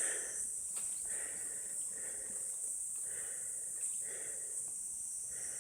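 Steady high-pitched insect chorus, with soft puffs of a person breathing hard about once a second.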